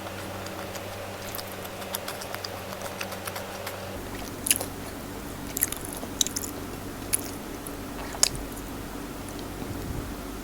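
Close-miked chewing and biting of a mouthful of food, with wet smacking clicks and a handful of sharper crisp clicks in the middle.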